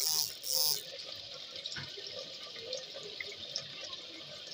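Chicken and ginger-garlic paste sizzling in oil in a clay handi: a steady faint crackle with scattered small pops, after two short hissing bursts in the first second.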